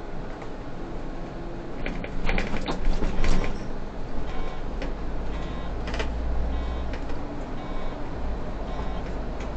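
Cab of a Solaris city bus on the move: a steady low driving rumble with cabin fittings rattling and creaking, and a cluster of sharp knocks and clicks about two to three seconds in.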